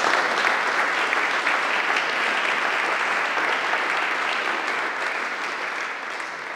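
Audience applauding: dense, steady hand-clapping that eases off slightly toward the end.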